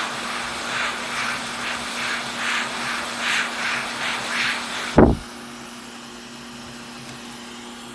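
Hot air rework station blowing with a steady fan hum and rhythmic swells of air, reflowing solder on a new PS5 HDMI port. About five seconds in there is a sharp click, and after it a quieter steady fan hiss runs on.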